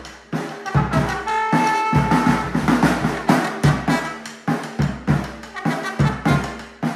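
Band playing live: a bass drum and a small sticked drum beat a steady rhythm of about two hits a second, with a held brass note, from a trombone, about one and a half seconds in.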